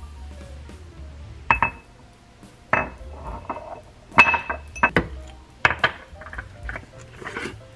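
Glass jar and its lid being handled on a granite countertop: about half a dozen sharp clinks and knocks, several with a brief glassy ring.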